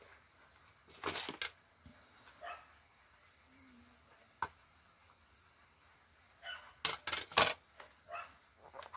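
Hands pressing and rubbing over the pages of a paper journal: short bursts of paper rustling and tapping about a second in, a single sharp click in the middle, and the loudest cluster around seven seconds in.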